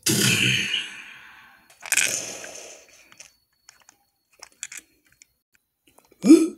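Two loud gunshot sound effects about two seconds apart, each cracking out suddenly and dying away over about a second. A few faint clicks follow, and near the end comes a short cry that rises in pitch.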